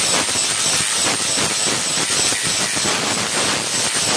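Electric angle grinder with its disc pressed against the edge of a curved steel blade, grinding metal: a loud, steady grinding hiss over a high motor whine.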